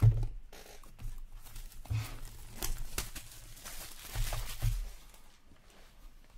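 Plastic shrink wrap being torn and crinkled off a cardboard box of hockey cards, with a few dull handling bumps, the loudest right at the start.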